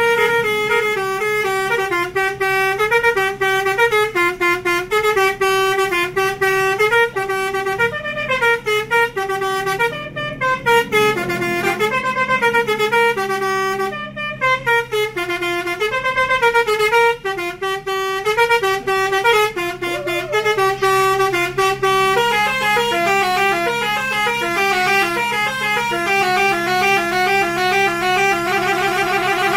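NPM intercity bus's melodic multi-tone 'telolet' horn playing a tune, its notes stepping up and down almost without pause, with a fast trill near the end. The bus engine hums steadily underneath.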